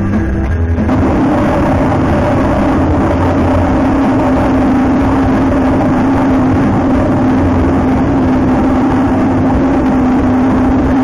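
Slot machine's bonus wheel spin sound effect: a steady, loud whirring drone with a held low hum. It takes over from the machine's music about a second in, as the wheel starts spinning.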